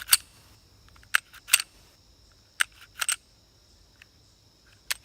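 A run of sharp, irregular clicks, about seven in all, with a faint steady high-pitched tone behind them.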